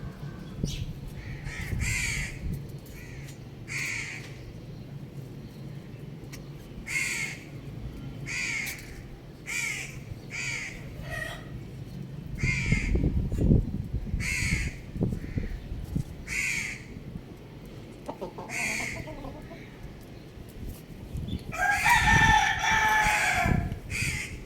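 Chickens calling with short, falling notes about a second apart, and a rooster crowing once near the end with one long crow.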